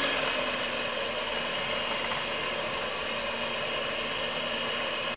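Electric hand mixer running at a steady speed, its twin beaters whisking pancake batter in a glass jug; the motor is switched off right at the end.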